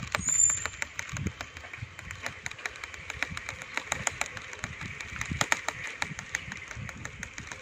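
Bicycle being ridden over a paved path: a stream of irregular clicks and rattles, with wind buffeting the microphone.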